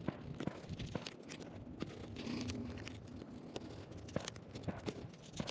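Paper target pasters being peeled and pressed over bullet holes on a target: scattered soft clicks, tearing and crinkling.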